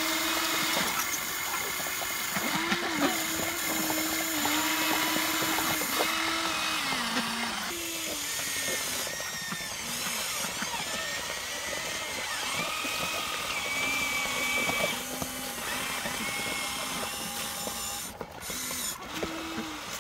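Electric motors of a Huina radio-controlled toy excavator whining, the pitch stepping and gliding up and down as the motors start, stop and change speed.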